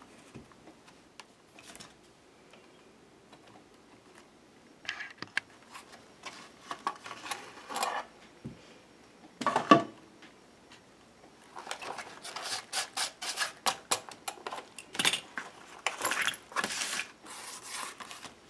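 Holes being drilled through a book cover with a chipboard template, and metal binder clips being handled: scattered crunching clicks and metal rattles, a sharp knock about ten seconds in, then a dense run of clicking and rattling.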